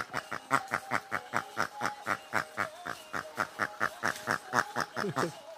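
Young Newfoundland dog panting quickly, about four or five breaths a second, over a faint background melody.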